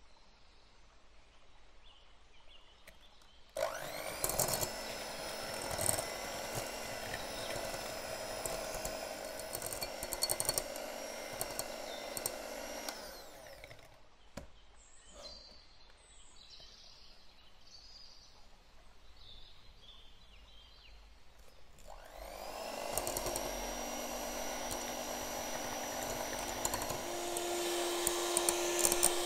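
Electric hand mixer running, its twin wire beaters whipping a cream cheese and cream mixture in a glass bowl. It runs in two stretches: it starts sharply a few seconds in, stops around the middle, then starts again and is louder near the end.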